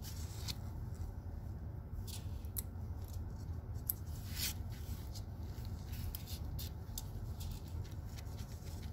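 Small metal nail clipper snipping a kitten's claws: a series of short, sharp clicks at irregular intervals, over a steady low background rumble.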